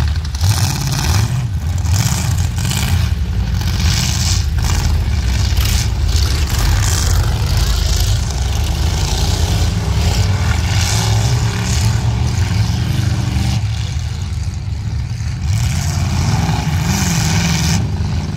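Several stock cars' engines revving and racing on a dirt track, a loud, rough rumble that rises and falls as the drivers accelerate.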